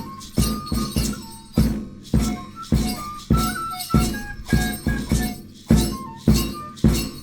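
Peruvian harp music: a steady low beat roughly every 0.6 s with bright jingling on each stroke, under a high melody of short held notes.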